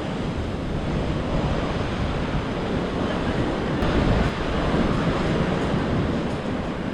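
Surf washing onto the beach, a steady rush of water, with wind rumbling on the microphone. The rush swells about four seconds in.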